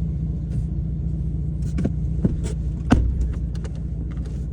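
Ford F-150 driving, heard from inside the cab: a steady low rumble of engine and road. A few short knocks and rattles come in the second half, the sharpest about three seconds in.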